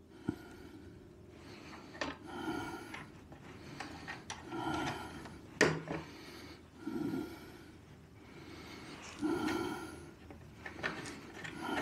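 A man's slow, even breathing close to the microphone, a soft breath about every two and a half seconds, while he fits bolts and nuts by hand on a snowblower's handle. Light clicks and taps of the metal hardware come between the breaths, the sharpest a little past halfway.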